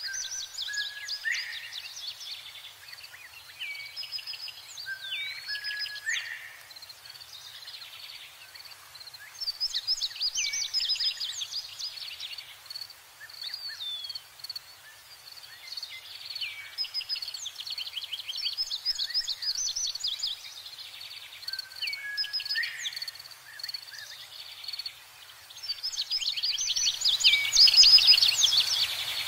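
Birdsong: bursts of rapid chirps, trills and quick rising and falling whistles, repeating every few seconds and loudest near the end, over a steady high insect drone like a cricket's.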